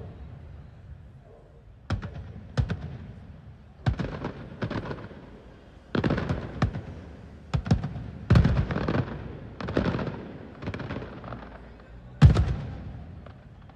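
Aerial firework shells bursting one after another, a sharp bang every second or two, each trailing off in a rumble. The loudest bang comes near the end.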